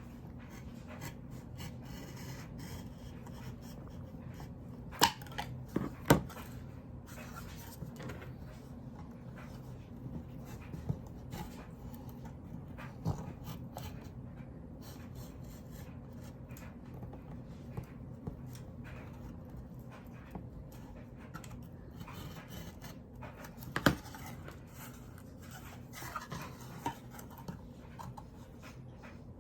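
Craft knife scraping and slicing through cardboard box seams, with a few sharp knocks as the box is handled, over a low steady hum.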